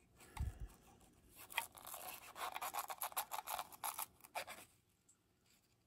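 A thin metal tool scraping and clicking against a die-cast model truck's plastic sliding ramp as it is pried out of its slot: a dull knock about half a second in, then a quick run of scratchy scrapes and small clicks for about three seconds.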